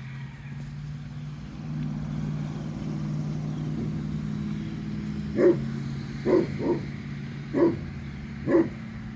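Great Pyrenees barking, five single barks starting about halfway through and spaced half a second to a second apart, over a steady low engine hum.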